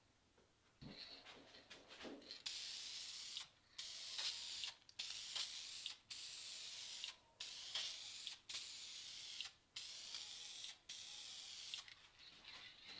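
Aerosol can of spray lacquer spraying a hissing mist in about eight short bursts, each about a second long with brief breaks between, starting a couple of seconds in.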